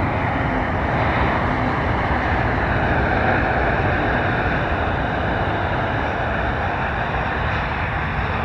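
Jet engines of a Boeing 737 on final approach, a steady rushing noise that swells slightly and then holds even as the airliner comes down to the runway.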